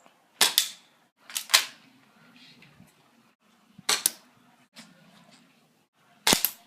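BB gun being fired, sharp snapping pops in close pairs, four times a few seconds apart.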